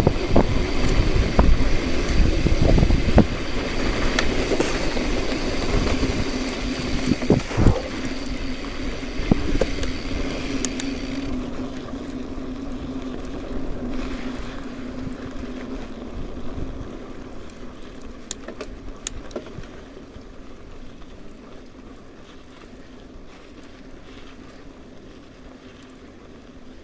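A motor running with a steady hum and a high whine, the whine cutting off about eleven seconds in, then the sound growing steadily fainter.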